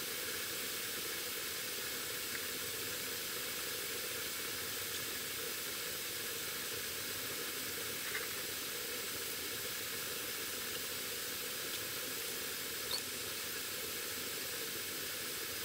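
Aerosol spray-paint can hissing steadily as paint is sprayed onto wooden desk cross braces.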